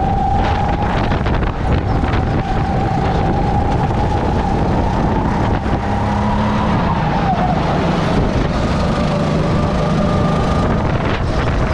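Onboard sound of a four-stroke rental racing kart's engine running at speed, its note dipping about seven seconds in, with wind rushing over the microphone.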